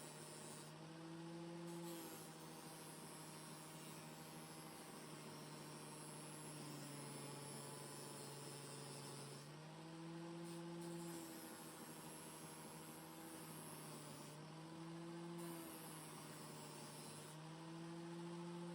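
Faint electric motor hum whose pitch dips and comes back up several times, as a motor does when it is loaded and then eased off.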